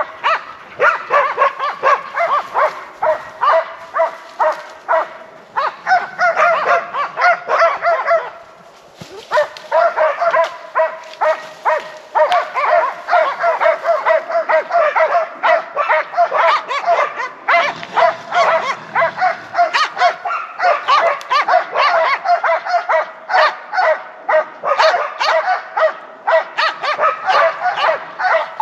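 A pack of Laika hunting dogs barking rapidly and without let-up, baying a moose that they are holding in place. There is a short lull a little over eight seconds in.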